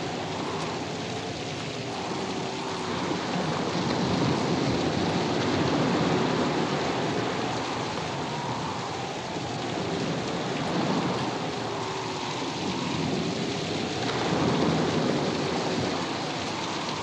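Storm effects on a film soundtrack: a steady roar of rain and sea surf that swells and ebbs every few seconds. Faint wavering, whistling tones ride over it.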